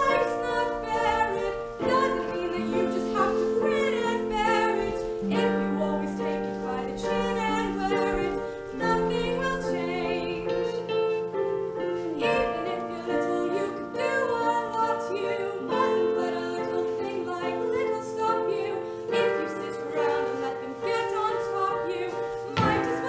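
A song from a stage musical: a voice singing held notes with vibrato over piano accompaniment.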